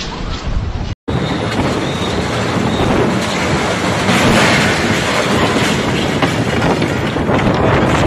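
Storm-force wind blasting over a phone microphone: a loud, continuous rushing roar with rattling clatter as building-site panels and cladding are ripped loose. It breaks off for an instant about a second in, then comes back louder.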